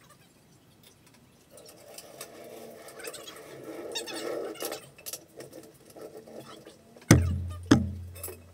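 Steel floor jack rolled on its casters across a concrete floor, a rattling rumble, then two heavy knocks near the end.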